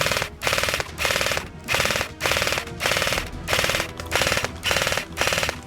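Airsoft light machine gun firing full-auto in a string of short bursts, about a dozen of them at roughly two a second, each a rapid rattle of shots.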